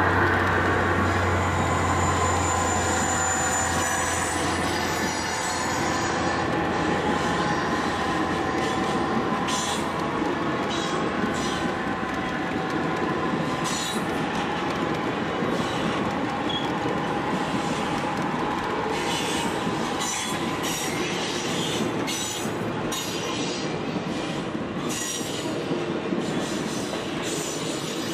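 HO scale model passenger cars rolling along the track: a steady rolling rumble with scattered clicks of wheels over rail joints. A low hum fades away over the first few seconds.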